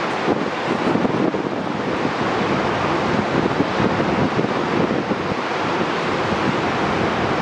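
Choppy, wind-driven lake waves breaking and washing along a beach in a steady rushing surf, with wind buffeting the microphone.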